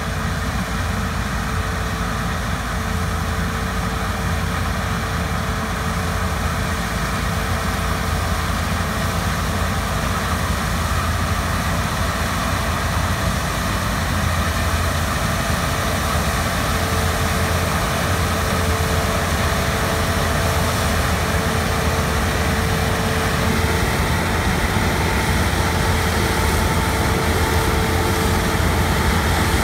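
Heavy harvest machinery running steadily, a large diesel engine with a low hum and a steady whine, growing slightly louder over the stretch.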